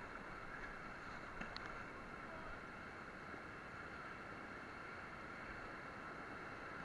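Steady rushing of river whitewater rapids.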